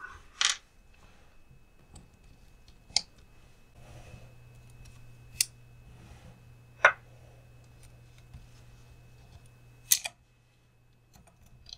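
Hard plastic and small metal parts of a Traxxas TRX-4M front axle clicking and tapping as they are handled and fitted by hand: about five sharp clicks a couple of seconds apart.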